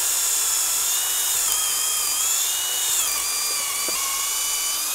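Cordless drill boring a pilot hole upward into the underside of a wooden beam, nearly the full length of the bit. The motor whines steadily, its pitch dipping a little about three seconds in as the bit bites deeper.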